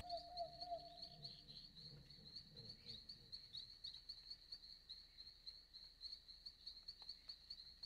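Faint, steady high-pitched insect trilling, a fast pulsing chirr, with a lower steady note sounding for about the first second.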